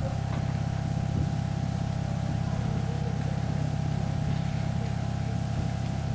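ÖBB class 1044 electric locomotive standing with its electrical equipment running: a steady low hum with a fixed higher tone over it.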